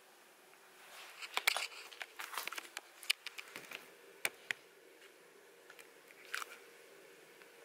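Soft crinkling with scattered clicks and taps of small objects being handled, most of it in the first half and one more short cluster near the end.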